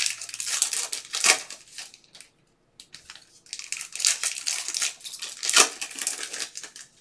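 Foil wrapper of a Panini Mosaic basketball card pack being crinkled and torn open by hand, in two spells of crackling with a short pause about two seconds in.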